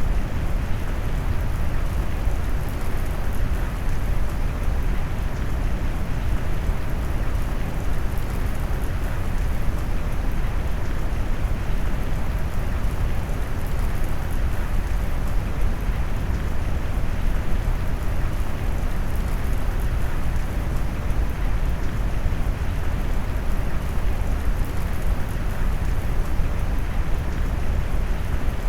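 Steady rain mixed with brown noise: a dense, even hiss, heaviest in the deep low end and thinning toward the top, with no breaks or distinct events.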